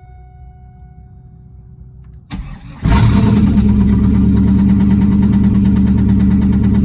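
Chevrolet Camaro F-body engine being started: a brief crank about two seconds in, then it catches and runs at a loud, steady idle.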